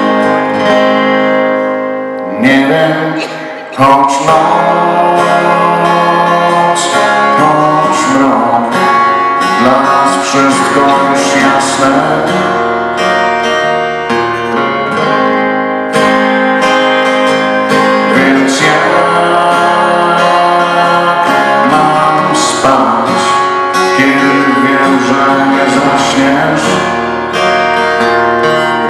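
Live acoustic rock song: a man singing over a strummed acoustic guitar, performed loud and continuous.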